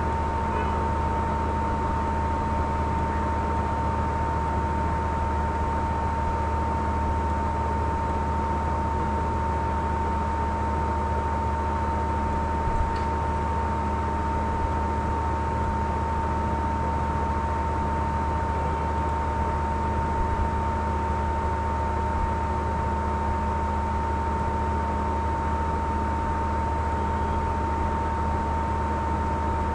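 Steady hiss and electrical hum with a constant high-pitched tone, the background noise of the recording, with a faint click or two.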